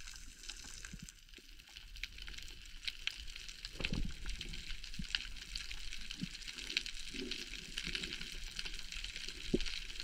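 Underwater sound picked up by a swimming diver's camera: a constant hiss dotted with many small crackling clicks, with irregular low swishes of water moving past the housing, the strongest about four seconds in and again around seven to eight seconds.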